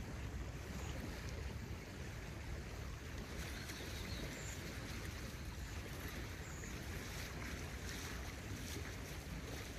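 A high, fast-flowing river rushing steadily, with wind buffeting the microphone.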